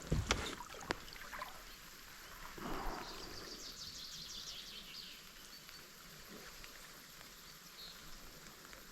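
A few sharp knocks on the canoe in the first second, then a short swish of water, with a bird's fast high trill in the background.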